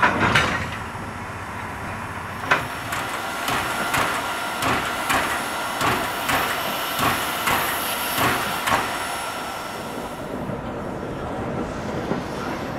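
Soo Line 4-6-2 steam locomotive #2719 moving slowly at close range: a loud metal clank at the start and another about two and a half seconds in, then a steady run of sharp knocks, about two to three a second, that fades out after about nine seconds into a quieter rumble.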